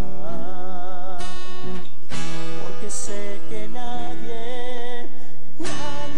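Acoustic guitar music, with a melody line held in wavering vibrato over it.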